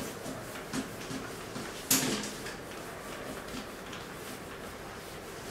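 Whiteboard eraser wiping across a whiteboard in short repeated strokes, with one sharp knock about two seconds in.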